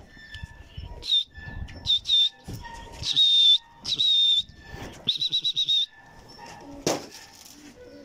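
A series of shrill, high whistle blasts, about six short and longer calls with the last one warbling, of the kind a pigeon flyer whistles to his flock in the air. A single sharp knock comes near the end.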